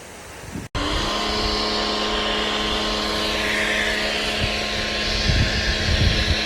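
Pressure washer running and spraying: a steady mechanical hum under a loud hiss of water spray that shifts in pitch as the spray moves. It starts suddenly about a second in, after a short break in the sound.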